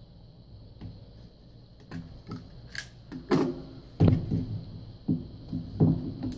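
Plastic housing of a cordless drill being handled and worked apart on a tabletop: scattered clicks and knocks, the loudest a few seconds in and near the end.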